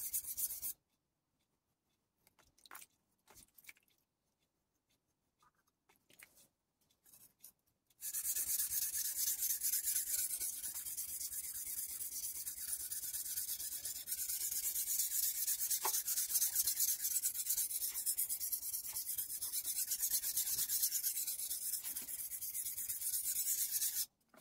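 Kai Shun chef knife blade being stroked back and forth on a wet Kai 300/1000-grit combination whetstone: a dense, rapid grinding scrape. It stops shortly after the start, leaving several seconds with only a few light clicks, then starts again and runs on steadily until just before the end.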